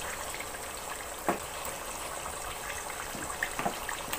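Marinated chicken pieces sizzling in hot oil in a metal pot, a steady hiss, with a few sharp knocks as more pieces go in, the loudest about a second in.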